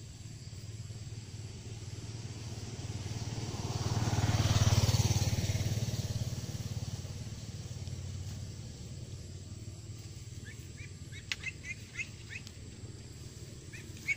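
A motor vehicle passes, its engine sound swelling to a peak about five seconds in and then fading away. Near the end come a series of short high chirps.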